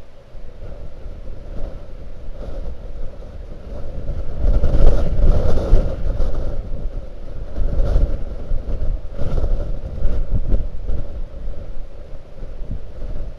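Blizzard wind buffeting the microphone: a heavy low rumble that swells and eases in gusts, strongest about five seconds in and again a few seconds later.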